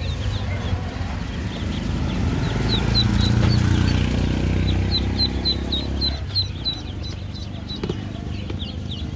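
A crowd of ducklings in plastic crates peeping, short high peeps overlapping, with a quick run of them about five to seven seconds in. A low rumble runs underneath and stops about six seconds in.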